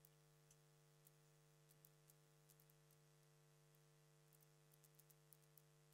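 Near silence: a faint steady electrical hum with a few faint ticks.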